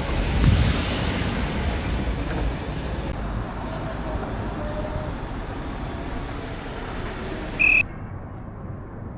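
Road traffic noise: a steady rumble of passing vehicles, with a short electronic beep near the end.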